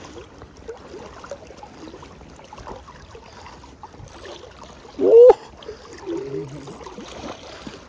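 River water flowing and lapping steadily, with a man's short, loud shout about five seconds in, pitch rising then falling, and a quieter voice a second later, as he plays a hooked trout from a float tube.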